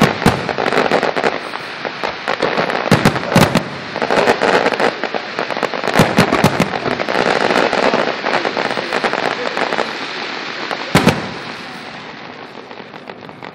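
Aerial fireworks going off: a dense run of crackling with repeated sharp bangs of shells bursting, one loud bang about eleven seconds in, then thinning out near the end.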